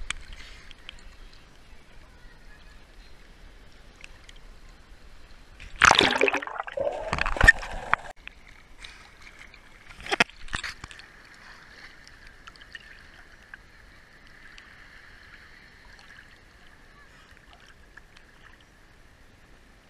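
Sea water splashing and sloshing close to the microphone, as from a swimmer's strokes, in two loud bursts about six and ten seconds in. A faint steady high hum runs under the second half.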